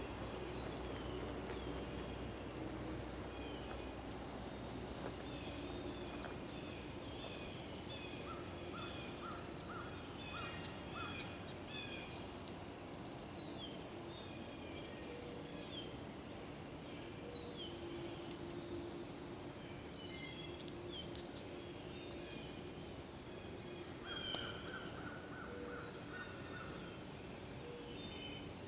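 Several songbirds singing and chirping at once, a dawn-chorus-like mix of short whistles and trills. One bird gives a quick run of repeated lower notes twice. There is a steady hiss underneath, and a few sharp clicks or pops come about two-thirds of the way in.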